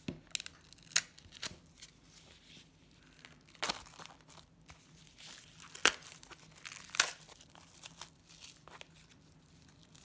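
Clear plastic shrink wrap being crinkled and torn off a small stretched canvas, with several sharp crackles of the film amid softer crinkling.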